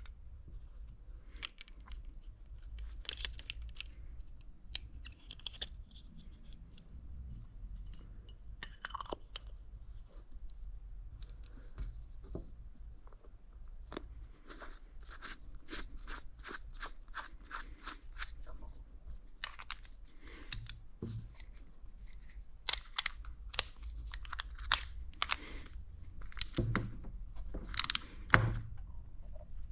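Hand tools and small parts being handled at a workbench: scattered clicks, taps and scrapes, coming thicker and louder over the last several seconds, over a low steady hum.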